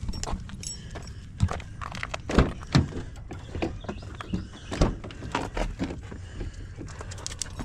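Footsteps with scattered knocks and thuds, a few of them louder about two and a half and five seconds in.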